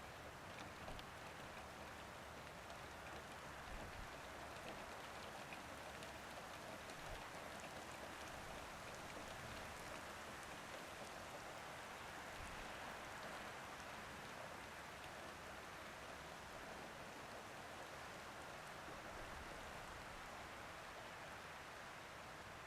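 Soft, steady rain falling on a roof, a low even patter with faint scattered drop ticks.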